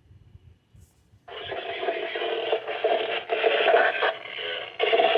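Harsh, noisy weather radio broadcast signal through a receiver's speaker. It cuts in loud about a second in and goes on in choppy stretches, with no clear speech.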